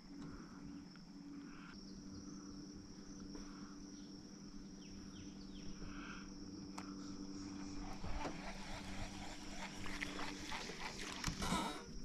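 Steady high insect drone over a low steady hum, with a few clicks and rustles in the last few seconds.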